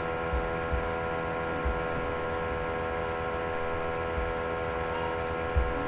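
Steady electrical hum and buzz, several fixed tones over a faint hiss, with a few soft low thumps, the strongest near the end.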